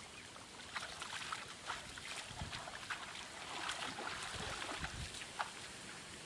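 Irregular splashing and sloshing of hands and bare feet in shallow muddy water, as people grope for fish and wade through the shallows.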